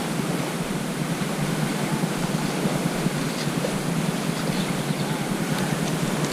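Steady rushing of flowing river water, an even noise without pauses.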